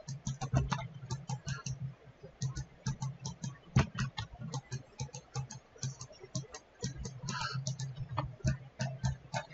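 Computer mouse and keyboard clicking: irregular, quick clicks, several a second, with short pauses, as the mouse buttons and number-pad keys are pressed while working.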